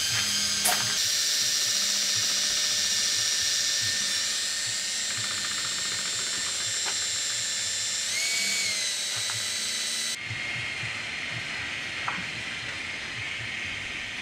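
Cordless drill with a paint-mixing paddle whirring steadily as it stirs marine paint in a plastic bucket. Its pitch rises briefly about eight seconds in, and it stops suddenly a little after ten seconds.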